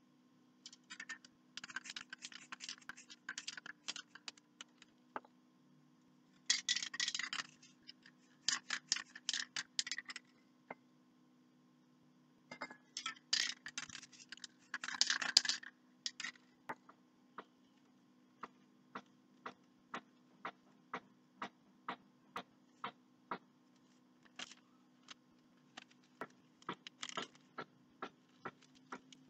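Aerosol spray-paint can being shaken, its metal mixing ball rattling in several bouts of fast clicking, the strongest bouts dense and loud. Then the shaking slows to a steady run of single clicks, about three every two seconds, over a faint steady hum.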